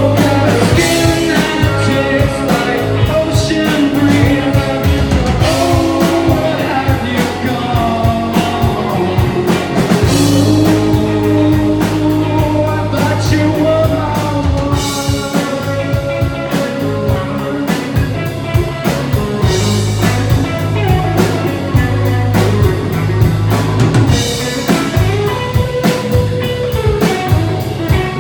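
Rock song played by a band, with a drum kit and guitar and a wavering melodic line over a steady beat.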